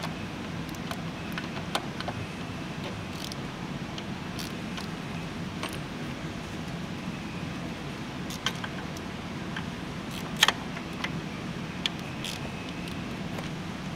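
Scattered light metallic clicks and taps of a hand tool being worked on a diesel fuel injector line fitting, with one sharper click about ten seconds in, over a steady low hum.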